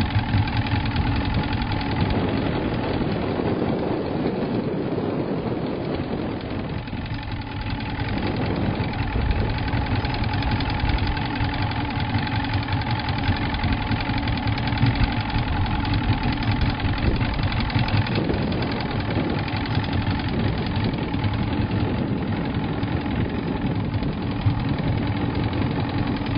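Boat motor idling steadily.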